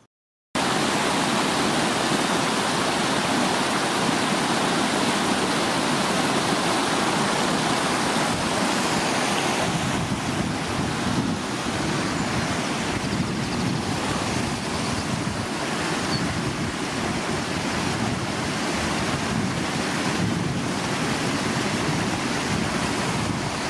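Wind blowing across the microphone: a loud, steady rushing noise that starts suddenly just after the start.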